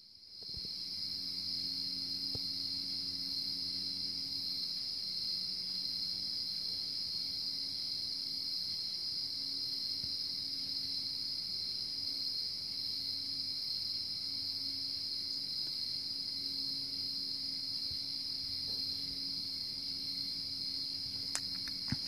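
A steady, high-pitched chorus of night insects, with a faint low two-note hum beneath it that is barely audible. The hum is the unidentified night-time noise, now fading away.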